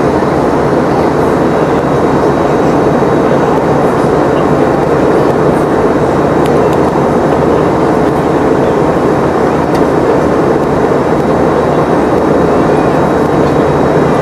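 Steady cabin noise inside a Boeing 717-200: a constant rush of its rear-mounted Rolls-Royce BR715 turbofans and airflow, with faint thin whines on top.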